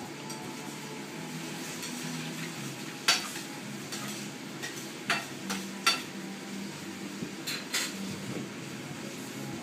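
Two small dogs play-fighting: scuffling with several sharp clicks, the loudest about three seconds in and a cluster around five to six seconds.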